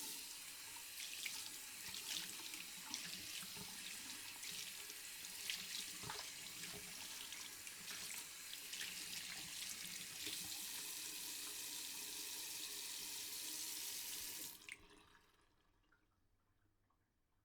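Tap water running into a sink while hands are washed under it, with small irregular splashes. The tap shuts off about fifteen seconds in, leaving a faint trickle that fades out.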